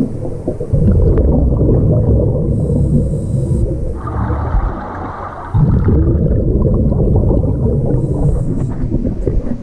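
A scuba diver breathing underwater through a regulator: a long low rumble of exhaled bubbles, a short hiss as the diver breathes in about four seconds in, then another long bubbling exhale.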